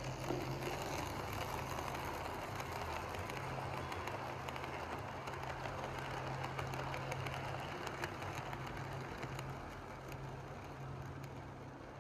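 HO-scale model train running past on the track: the motor hums steadily and the wheels rattle and click over the rails. The rattle eases near the end as the train moves away.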